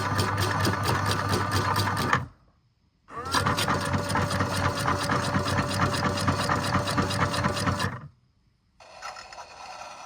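A small motorised machine running with a fast, even clatter of about eight strokes a second. It stops about two seconds in, starts again about a second later with a steady whine added, and stops again near the end. A quieter, steady hum follows.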